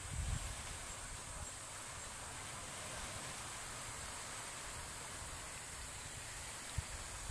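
Steady outdoor ambience: a high, even insect drone over a soft hiss, with a brief low rumble in the first half second and a small knock near the end.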